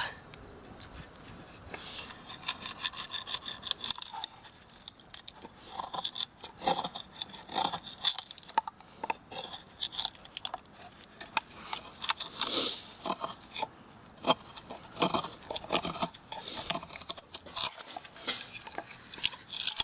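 A Lionsteel SR-1 knife's D2 steel blade cutting into a wooden board in repeated forceful strokes, giving irregular sharp cracks and scrapes as the edge bites and wood chips break away.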